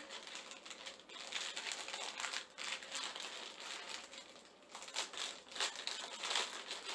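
Crinkly packaging rustling and crackling unevenly as a pair of tabi socks is unwrapped by hand, busiest about a second in and again near the end.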